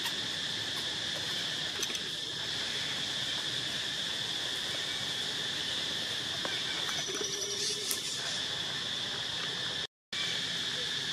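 Steady high-pitched drone of insects in the background, holding even throughout and cutting out for a moment near the end.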